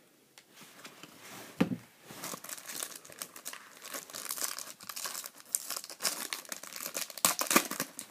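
A red foil trading-card pack wrapper crinkling and tearing as it is ripped open by hand, with a sharp knock about a second and a half in.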